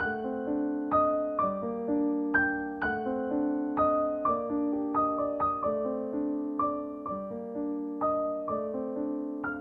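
Soft background music played on piano or electric piano: single notes struck and left to ring, about two or three a second, over low sustained chords.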